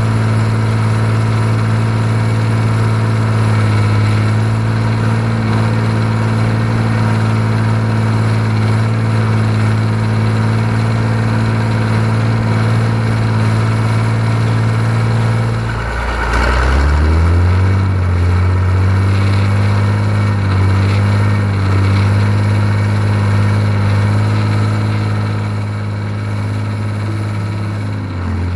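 John Deere 3130 LS tractor's six-cylinder diesel engine running steadily. About halfway, the revs drop sharply and then climb back, settling a little lower than before.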